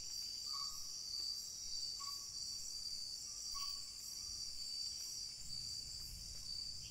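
Nocturnal insect chorus: crickets trilling in several steady high-pitched bands. Three short, lower calls come about a second and a half apart.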